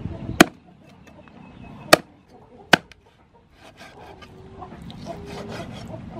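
Three sharp chops of a meat cleaver through raw pork onto a wooden chopping board, in the first three seconds. After that comes a softer stretch with a low, wavering call in the background.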